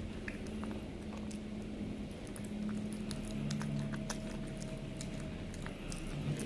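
Cat eating raw chicken from a plate, chewing and licking in scattered small clicks, over a low steady hum.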